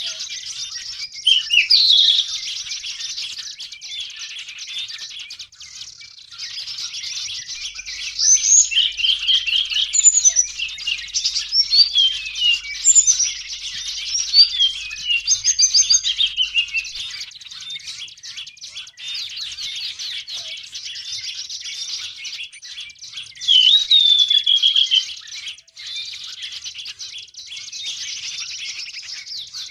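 Dense, rapid high chattering of many small birds, flowerpeckers among them. Louder sharp whistled notes and quick pitch glides break out about two seconds in, through a long stretch in the middle, and again near the end.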